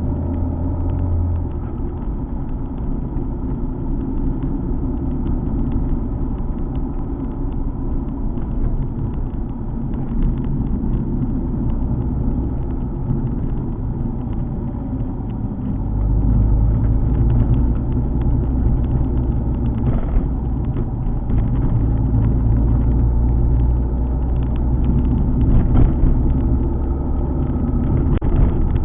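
Alfa Romeo 147 GTA's 3.2-litre V6 running as the car drives along, mixed with road noise. About sixteen seconds in, the low engine note gets louder and stays up.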